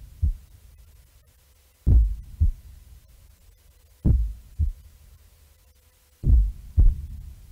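Heartbeat sound effect: low paired thumps, a strong beat followed about half a second later by a weaker one, repeating about every two seconds.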